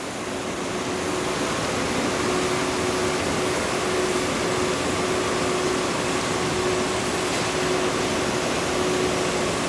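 Steady rushing noise of water spraying onto the surface of an open wastewater treatment tank, with a faint steady machine hum.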